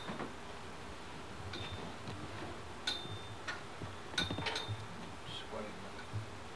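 Scattered light clicks and clinks of household items being handled among packing boxes, several with a brief high ring, like glass or metal knocking together.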